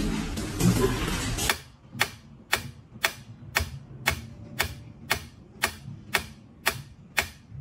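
Mechanical pyramid metronome ticking steadily, about two sharp ticks a second, as its pendulum swings. A second and a half of loud, dense noise comes before the ticking starts.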